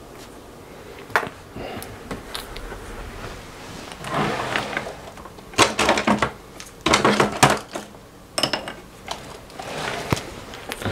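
Handling noises on a workbench: a sharp knock about a second in, then irregular clicks, clatters and rustling bursts as parts and tools are moved about.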